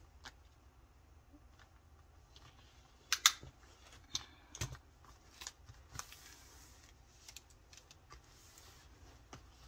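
Scattered light clicks and taps of handling as a large diamond-painting canvas is laid out and measured, the sharpest a little over three seconds in.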